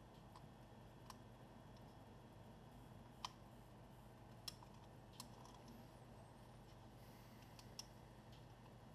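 Near silence with a handful of faint, sharp clicks a second or more apart: small laptop parts and screws being handled and fitted.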